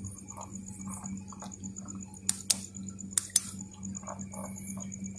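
A few sharp clicks and small knocks, four of them close together in the middle. They sit over a steady low hum and a fast, evenly pulsing insect trill.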